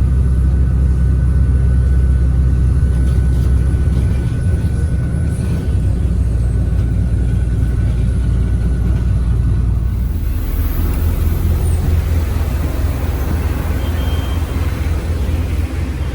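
Steady low rumble inside a moving vehicle, engine and wheel noise heavy in the bass, with a hiss that grows a little louder about ten seconds in.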